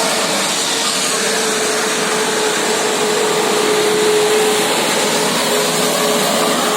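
Steady, loud running noise of a bus engine and traffic close by, with a faint steady whine.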